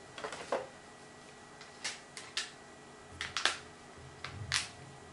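Handling noise from a smartphone: scattered sharp plastic clicks and taps, about a dozen, with a few soft low bumps in the second half.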